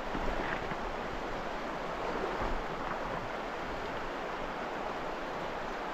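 River current flowing and rippling: a steady, even rush of water.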